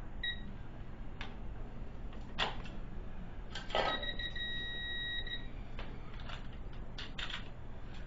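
Digital torque wrench beeping: a short electronic beep just after the start, then one long steady beep of about a second and a half midway, with a few clicks and knocks of the wrench and socket on a lug nut as its breakaway torque is measured.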